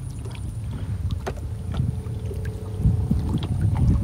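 Small wooden canoe being paddled: water lapping and splashing at the hull with small knocks and drips, a paddle stroke swelling near the end, over a steady low rumble of wind on the microphone.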